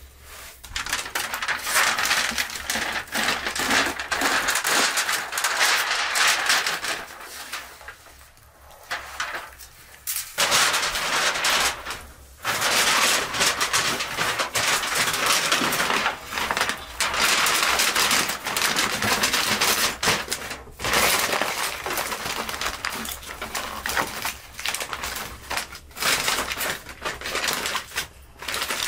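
Aluminium foil crinkling and rustling as it is pulled from the roll and pressed and folded around a whole turkey. The crinkling is loud and irregular, with short pauses about eight and twelve seconds in.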